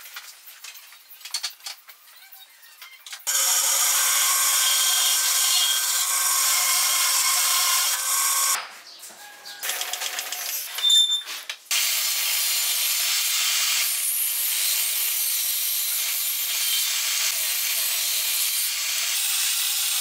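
Benchtop table saw running and ripping thin wood strips: a loud, steady whine that comes in suddenly about three seconds in, stops for a few seconds in the middle, then runs again. Before it come a few light clicks of hand tools being handled on the bench.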